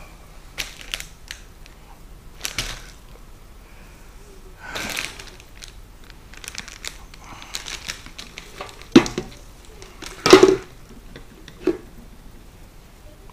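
Aluminium foil and food wrappers rustling and crinkling as they are handled, with scattered clicks and a few sharp knocks, the two loudest about nine and ten seconds in.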